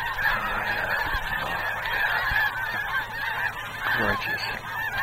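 A large flock of snow geese calling, many overlapping calls merging into one continuous clamor without a break.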